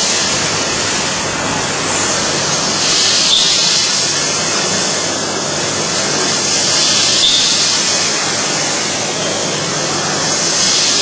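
CNC machine at work on a workpiece, giving a steady, loud hiss without distinct strikes or tones.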